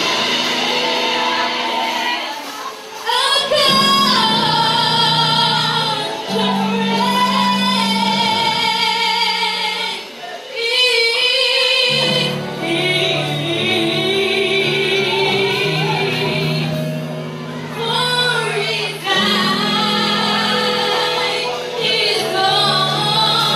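A teenage girl singing a gospel song solo into a handheld microphone, holding long notes with vibrato in phrases broken by short breaths.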